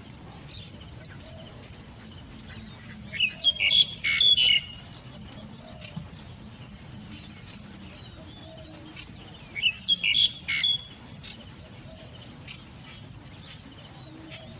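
A bird singing two loud phrases of quick, high notes, about six seconds apart, with fainter bird chirps in the background.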